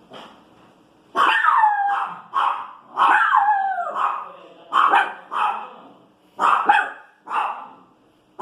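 Small pinscher dog barking in a string of about eight calls: short sharp barks mixed with two drawn-out, whiny barks whose pitch slides down. It is a dog grumbling and barking back at noise from the street.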